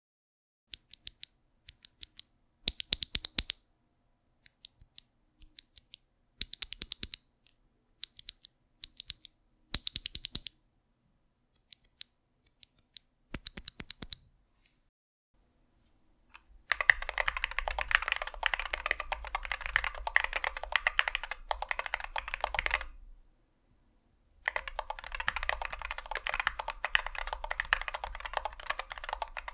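Unlubed NovelKeys Cream+ linear POM switches: first a single switch is pressed repeatedly right at the microphone, stock and then with a silicone stem insert, giving short clusters of sharp clacks between pauses. After a gap, a mechanical keyboard fitted with the switches is typed on fast in two long runs, the second with titanium inserts, which lower the pitch.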